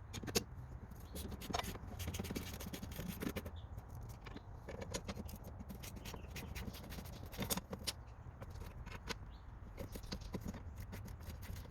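Hand tools and metal parts being handled while a battery ground cable is moved from one bolt to another. The sound is irregular clicks, light knocks and scraping.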